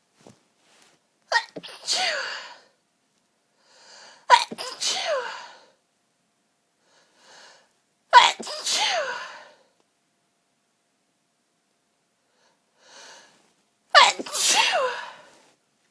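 A woman sneezing four times in a sneeze fit, the sneezes a few seconds apart with a longer pause before the last. Each sneeze starts sharply and ends in a voiced cry that falls in pitch, and short in-breaths come before some of them.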